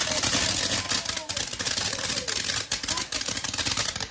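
Firework fountain (a sugar skull / flashing skull fountain) spraying sparks: a steady hiss with dense crackling pops.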